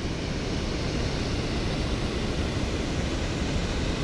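Mountain stream rushing over rocks in white rapids, a steady noise.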